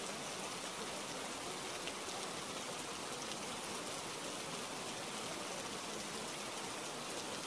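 Steady recorded rain: an even hiss of falling rain with faint specks of individual drops, unchanging throughout.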